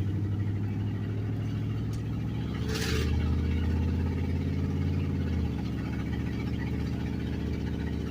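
Truck engine running while driving, heard from inside the cab; its note climbs under acceleration and drops back about five and a half seconds in, with a brief hiss near the middle.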